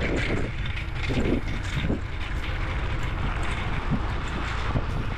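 Wind buffeting the microphone while riding along a road: a steady, fluttering low rumble mixed with road noise.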